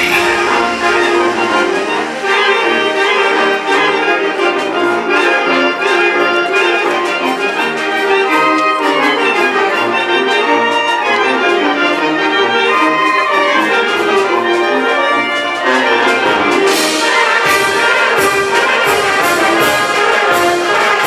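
Brass band playing a dance tune, with trumpets and trombones carrying the melody over a steady percussion beat; the cymbals and drums come in more strongly near the end.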